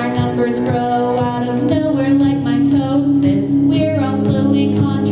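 Live song: a woman singing into a microphone over held low notes from an upright string instrument, likely a cello.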